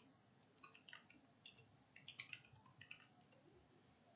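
Faint typing on a computer keyboard: an uneven run of quick key clicks that stops a little after three seconds in.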